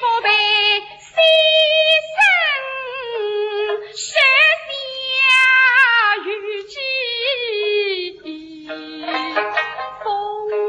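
Suzhou tanci singing: a high voice draws out a sung line in long notes that slide up and down, over a plucked-string accompaniment.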